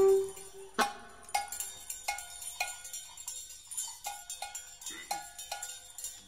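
Cowbell struck alone in a sparse jazz passage, about two strikes a second, each with a short metallic ring. The full band stops just as it begins, and a faint low sliding note is heard near the end.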